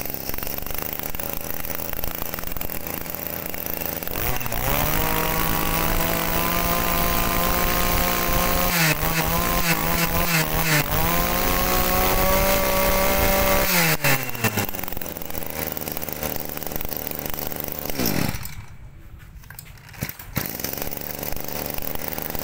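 Small two-stroke brush cutter engine, the Green-brand 22cc, running at idle, then revved hard about four seconds in. It is held at high revs for about ten seconds with a brief dip partway, then drops back to a lower, rougher idle.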